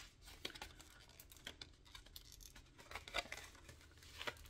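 Faint crinkling and crackling of mascara packaging being handled and pried at while it resists opening, in irregular short scratchy clicks.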